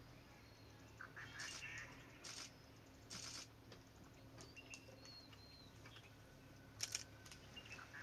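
Quiet forest with faint high chirps and short whistles of small birds over a low steady hum. A few soft scuffs and taps come through, the sharpest pair about seven seconds in.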